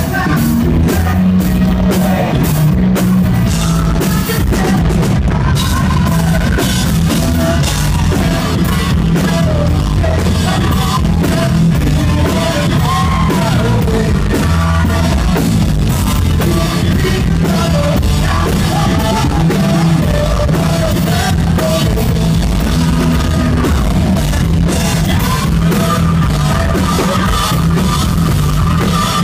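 Live rock music: a singer over a band with a drum kit and heavy bass, played loud.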